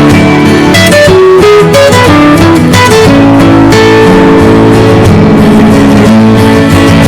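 A Nokia phone ringtone played as a guitar-like melody of plucked notes: a run of quick notes, then longer held ones over a steady bass.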